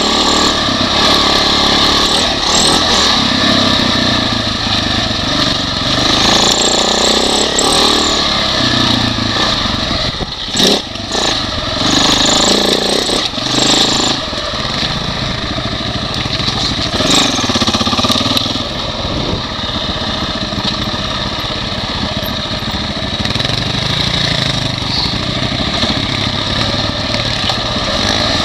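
Single-cylinder four-stroke engine of a Husaberg FE550e dirt bike running under load, its revs rising and falling as the throttle opens and shuts over trail bumps. There is one sharp knock about ten seconds in.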